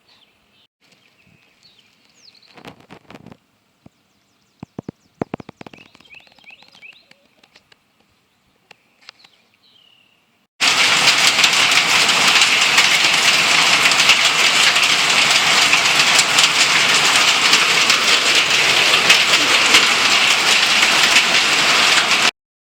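Faint birdsong and a few soft clicks, then, about ten seconds in, a loud steady hiss of heavy rain that starts and stops abruptly.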